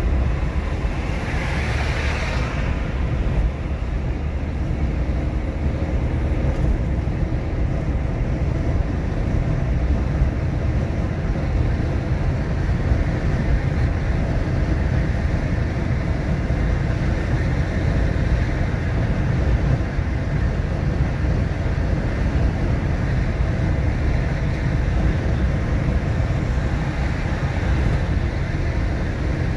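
Steady low road and engine rumble of a car being driven, with a brief hissing swell about two seconds in.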